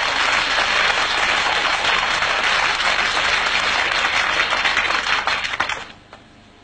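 Audience applauding, a dense steady clapping that dies away quickly near the end.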